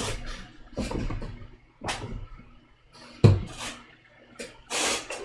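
Circuit board being cleaned by hand: a string of short scrubbing or wiping noises, about one a second, with a sharp knock a little over three seconds in.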